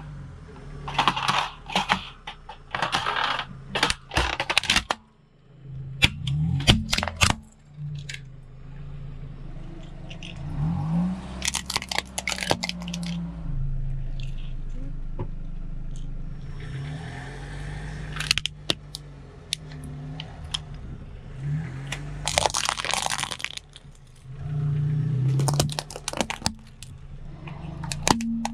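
A car's tyre rolling over and crushing plastic objects such as a wire birdcage and a computer mouse, with clusters of sharp cracks and crunches. The car's engine runs steadily at idle underneath.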